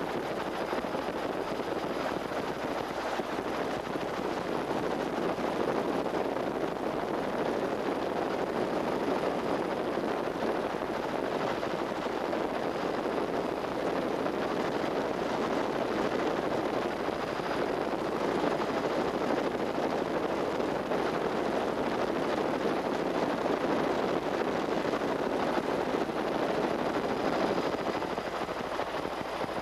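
Steady engine and rotor noise of a helicopter in flight, picked up by the camera on board.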